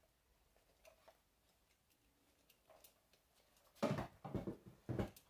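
Faint, scattered clicks from handling tools while measuring them, then a run of louder knocks and rubbing near the end.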